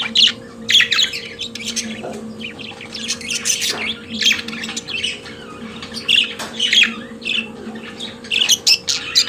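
Budgerigars warbling and chattering, a steady run of quick, sharp chirps and squawks with no pauses.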